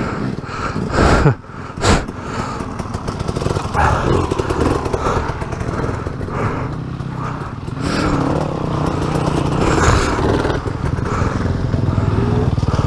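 Adventure motorcycle engines running close by. There are two loud, sudden bursts about one and two seconds in.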